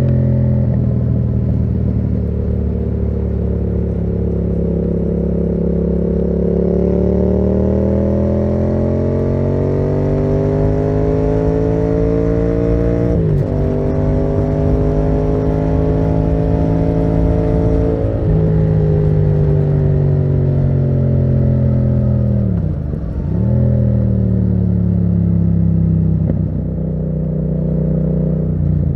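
Yamaha MT-07's parallel-twin engine through a Termignoni exhaust, ridden under load: its pitch climbs slowly through the gears and drops sharply at two upshifts, about thirteen and eighteen seconds in. Near the end the revs dip and climb again twice as the throttle is closed and reopened.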